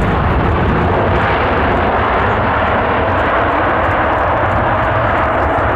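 Jet airliner engines running loud and steady close by, with a faint steady whine coming in about halfway through.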